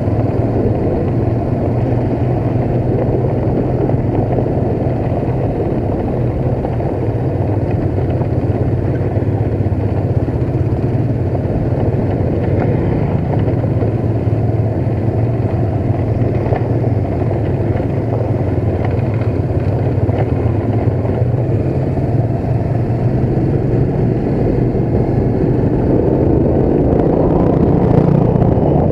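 Motorcycle engine running steadily while riding slowly on a rough dirt-and-gravel path, getting a little louder near the end.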